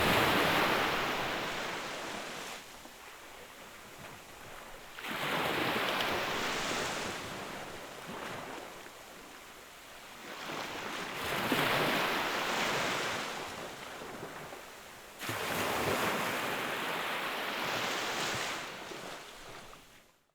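Ocean waves: four surges of surf about five seconds apart, each rising quickly and then fading over a few seconds. The recording cuts off near the end.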